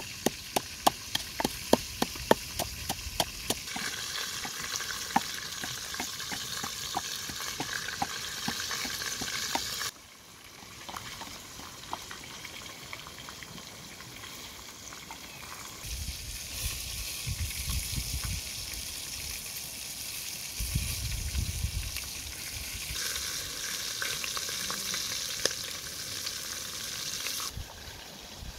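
Wooden pestle pounding in a wooden mortar, a fast run of knocks about four a second, then a steady hiss.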